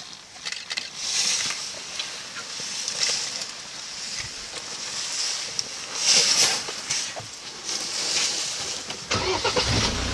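Rustling and crackling in the brush, then about nine seconds in a safari truck's engine starts and settles into a steady idle.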